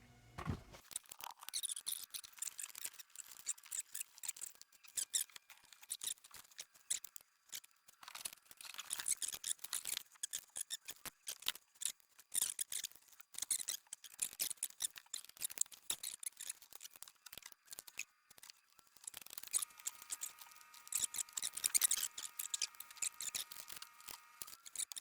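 Quick irregular clicks and scraping of small hand-tool work, high-pitched and fairly faint. Near the end, faint steady high tones join in for about five seconds.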